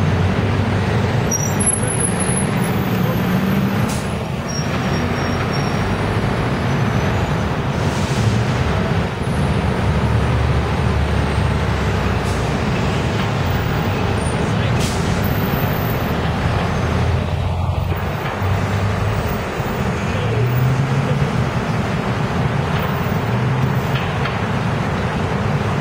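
City buses and taxis running in heavy street traffic: steady diesel bus engine rumble and tyre noise, with a couple of short hisses typical of bus air brakes.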